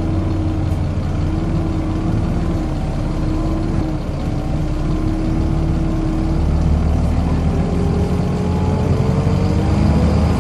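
Volvo B7LA bus running, with a low rumble and a steady whine that holds its pitch, then begins to rise near the end as the bus speeds up.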